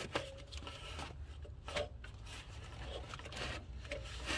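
Sprinter van engine running at idle: a low steady hum with irregular faint scrapes and clicks from the belt drive. These are the noise of worn idler pulleys and belt tensioner, which should run silent and are due for replacement.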